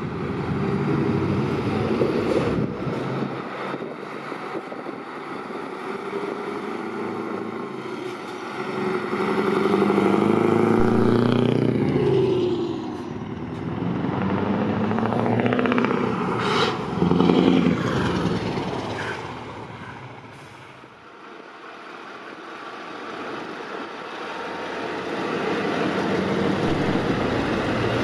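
Heavy diesel trucks driving past one after another, each engine and its tyre noise swelling as it comes close and fading as it moves away.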